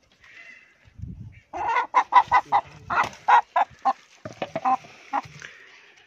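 A chicken squawking in a fast run of loud, repeated calls lasting about four seconds, the alarm call of a bird being caught and held by hand. A low thump comes just before the calls start.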